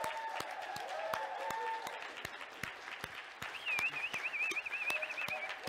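Congregation applauding, with some cheering early on and a high warbling whistle for about two seconds near the end.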